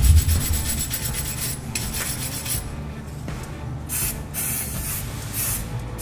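Wire brush scrubbing the rusty face of a wheel hub. About four seconds in, short hissing bursts of an aerosol can spraying copper grease onto the hub take over.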